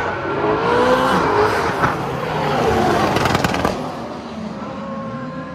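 Drift cars' engines revving hard and gliding in pitch as they slide past, over a hiss of tyre noise. A quick run of sharp crackles comes just past the middle, then the sound fades as the cars move away.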